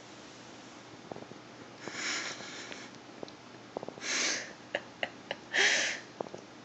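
Three breathy sniffs or puffs of air close to the microphone, about two seconds apart, the last the loudest. A few light clicks fall between them.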